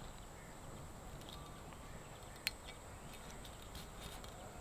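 Faint outdoor ambience with a steady high-pitched hum throughout and one sharp click about two and a half seconds in.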